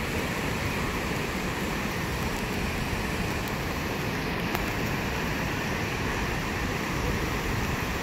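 Fast-flowing floodwater of a stream swollen by heavy typhoon rain, rushing with a steady, even noise.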